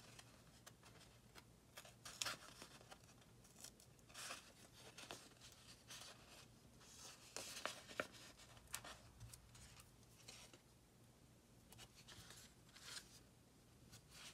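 Faint rustling and small ticks of a glossy sticker sheet being flexed and handled, with metal tweezers picking small dot stickers off it, in scattered short bursts.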